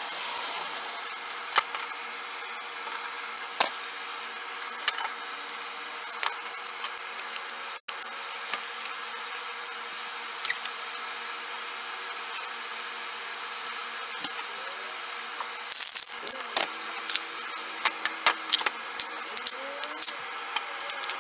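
Scattered small clicks and taps of tools and parts being handled on a wooden bench, over a steady low hum. Near the end the clicks come thicker and louder: a bit being taken out of a cordless drill's chuck and steel bits rattling in a plastic bit case.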